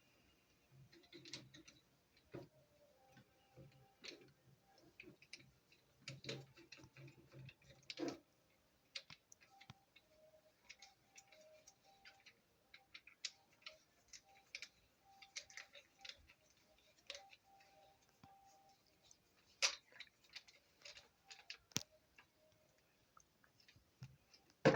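Scattered light clicks and knocks of tools and packaging being handled, with a faint steady hum underneath.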